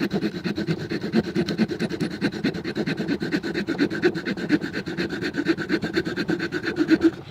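Leatherman Signal multitool's saw blade cutting wood in quick back-and-forth rasping strokes, stopping near the end.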